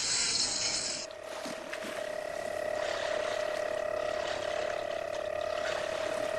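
A mechanical sound effect: a high hiss that cuts off about a second in, then a steady machine hum with a rapid ratcheting clatter.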